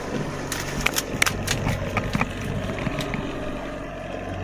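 Boat engine running steadily at trolling speed, with a quick series of sharp clicks and knocks about half a second to two seconds in.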